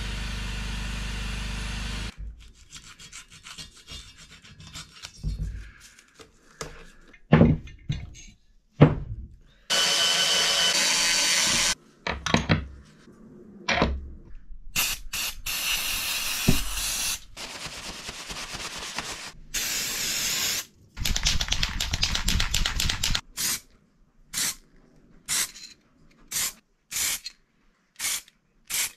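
Work sounds cut together: a handheld power drill runs against a metal part and stops about two seconds in. Then come a few separate knocks and clatter, several stretches of steady hissing, and near the end a string of short aerosol spray bursts onto the brass parts.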